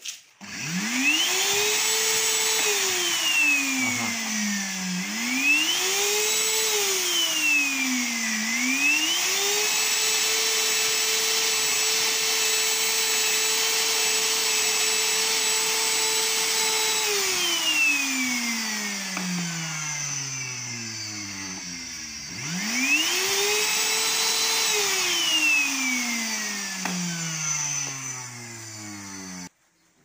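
Samsung VC6015V 1500 W vacuum cleaner motor switched on four times. Each time it spins up to the same steady whine and then winds down as it cuts out; it runs longest in the middle. Its on/off button works poorly and its power-level switch does not work.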